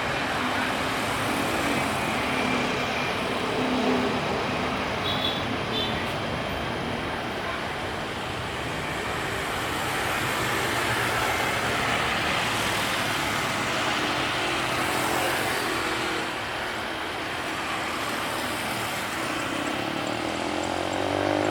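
Steady engine and traffic rumble, even throughout with no single pass or event standing out.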